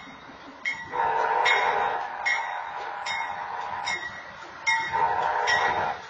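BNSF diesel locomotive's air horn sounding a long multi-tone blast of the long-long-short-long grade-crossing signal as the train approaches. The blast starts about a second in, is loudest for its first second, and fades off shortly before the end. A crossing bell strikes about every 0.8 seconds throughout.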